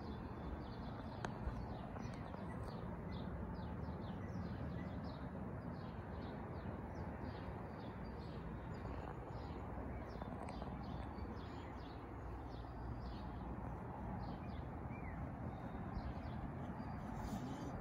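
Faint outdoor ambience: small birds chirping over and over, a few short chirps a second, over a steady low background rumble.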